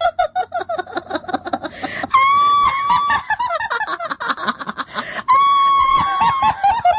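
Horror sound effect of a female ghost's cackling laugh: rapid high-pitched 'ha-ha' pulses, broken twice by a long high shriek, the cackle falling in pitch near the end.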